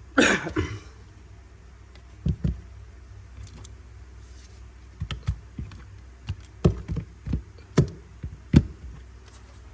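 Metal Zippo lighters being handled and set down: a short rustle at the start, then a string of separate knocks and clicks, some in quick pairs.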